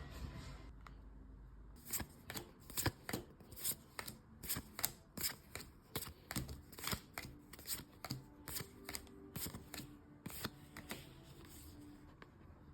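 Trading cards being flipped through by hand, a sharp card-on-card flick about three times a second, starting about two seconds in and stopping near the end.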